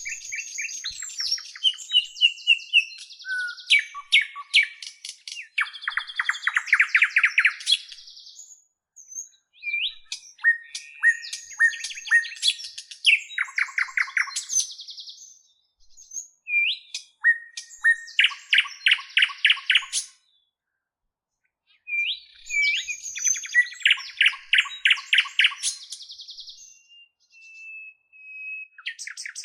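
A songbird singing a long, varied song: fast runs of repeated notes and trills mixed with short clear whistles, in phrases broken by brief pauses.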